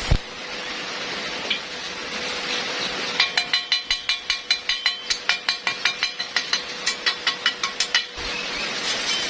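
Steel being struck rapidly, about six blows a second for some five seconds with a short break, each blow making the metal ring. A steady sizzling hiss runs underneath.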